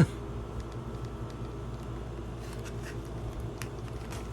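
Steady low hum with a few faint small clicks and taps, typical of handling parts on a workbench.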